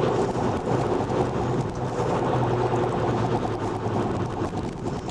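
Police car's engine and tyre noise heard inside the cabin while driving: a steady rumble with a constant low hum.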